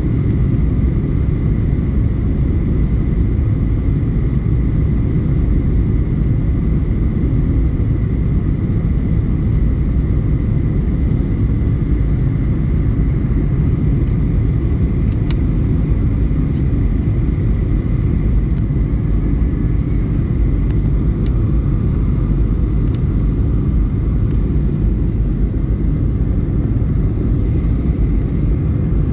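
Jet airliner cabin noise heard by the window seat: a steady low rumble of the engines and rushing air, with a thin steady high whine over it.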